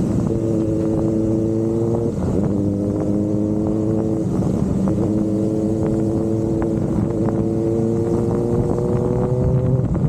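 Kawasaki ZX-4RR's 399 cc inline-four engine pulling under way, its note rising slowly. It breaks briefly about two seconds and about four seconds in, like quick gear changes, then climbs again.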